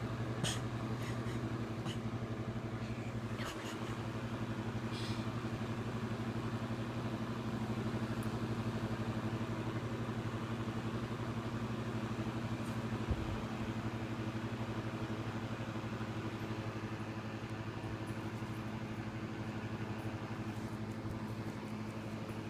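Steady low machine hum, as from an appliance or fan running, with a few faint clicks in the first few seconds and a soft thump about 13 seconds in.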